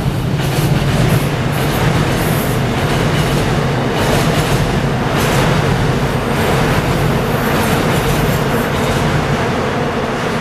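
A Seoul Subway Line 7 electric train running past on a bridge. It makes a steady loud rumble of wheels on rail with repeated clicks, and thins out near the end as the last cars go by.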